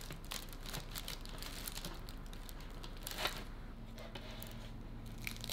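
Crisp, freshly baked bread crust and the baking parchment under it crinkling and crackling as hands grip and lift a bacon épi wreath, with one louder crackle about three seconds in.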